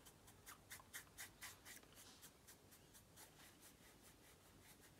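Paintbrush bristles dabbing and brushing oil paint on a canvas: faint quick scratchy strokes, about four a second, getting softer in the second half.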